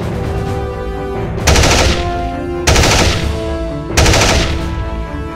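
Three bursts of automatic gunfire from a video-game-style sound effect, each cutting in suddenly and fading over about half a second, a little over a second apart, over background music.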